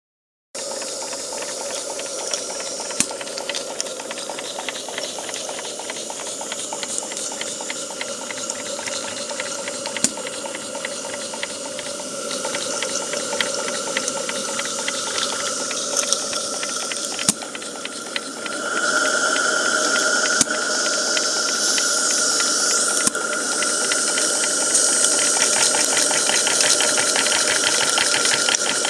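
A gas-fired 32 mm gauge live-steam locomotive hissing steadily, with a rapid fine ticking under the hiss. About two-thirds through it grows louder and a steady high whistling tone joins the hiss.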